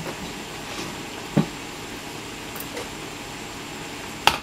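Steady room hum with two short knocks: a dull one about a second and a half in, and a sharper, louder one near the end.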